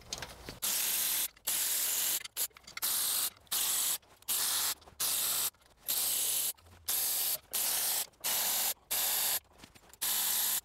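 Power ratchet run in about a dozen short bursts, each under a second, starting and stopping abruptly, as it backs out the 12 mm perimeter bolts of a Toyota Prius's main oil pan one after another.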